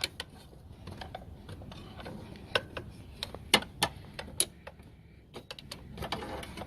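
Irregular metallic clicks and taps of a hand tool knocking against engine pulleys and brackets as a serpentine belt is pushed down under a pulley.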